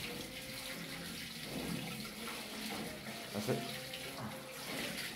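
Water poured from a bucket into an open PVC drain pipe, splashing and running down inside the pipe with a steady rushing sound. The drain line is being filled with water for a leak test.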